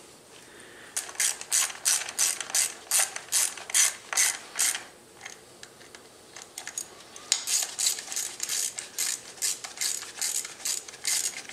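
Socket ratchet clicking in quick, even strokes as it runs in the clutch slave cylinder's mounting bolts. The clicking comes in two spells, with a pause of about two seconds between them.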